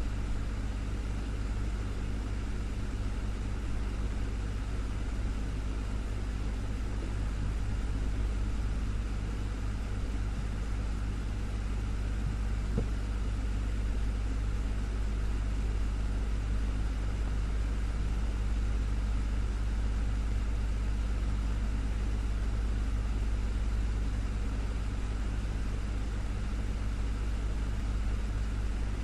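Desktop fan running steadily, a continuous low hum with an even whoosh of air over it. A single faint tick about 13 seconds in.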